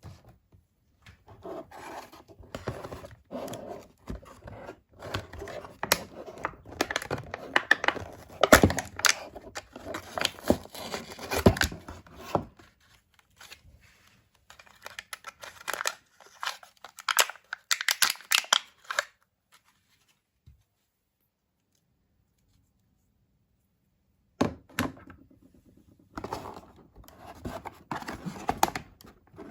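Doll packaging being opened by hand: irregular tearing, crinkling and scraping, with a quiet gap of about five seconds past the middle.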